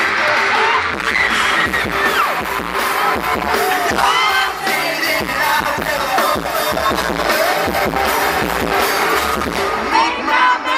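Live pop-punk band playing a song: electric guitars, bass and drums with sung vocals, heard from the crowd at a stadium concert.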